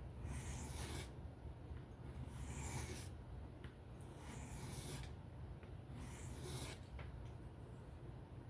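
Knife blade stroked across a sharpening stone in freehand sharpening: four scraping hisses about two seconds apart, over a steady low hum.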